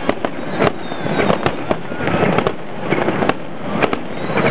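Aerial firework shells bursting in quick succession in a finale barrage: a dense, continuous run of bangs, several a second, over a steady crackling haze.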